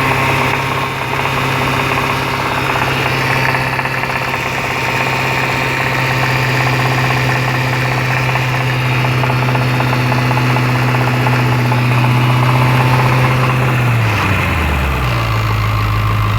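Jaguar XFR's supercharged 5.0 V8 idling steadily with a knocking noise, its supercharger disconnected; the dealer blames the supercharger. Near the end the engine speed drops and settles to a lower idle.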